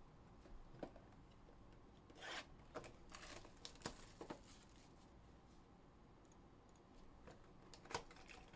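Cellophane shrink wrap being torn and peeled off a trading-card hobby box: faint crinkling and tearing with a few sharp clicks, mostly between about two and four and a half seconds in, then quieter handling of the box.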